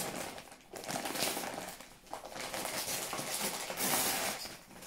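Wrapping paper and tissue paper rustling and crinkling in several stretches as a gift is torn open by hand.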